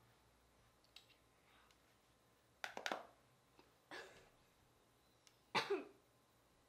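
Clicks and handling noises from a plastic compact mirror being picked up and opened: a quick run of sharp clicks about three seconds in, then two short scuffing sounds, the last and loudest about five and a half seconds in.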